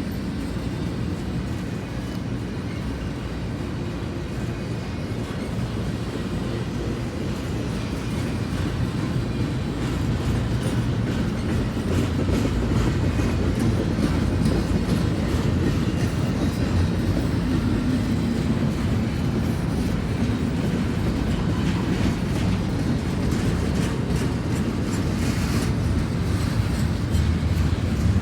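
Slow-moving CSX intermodal freight train rolling past, a steady rumble of steel wheels on rail with faint clicks, growing louder about halfway through.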